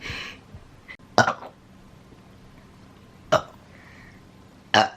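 A woman burping: three short belches, about a second in, a little past three seconds and near the end.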